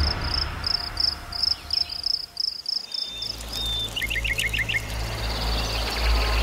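Rainforest animal calls: a rhythmic high chirping call at about four pulses a second, then a quick run of short falling whistles about four seconds in, over a low steady hum that starts about three seconds in.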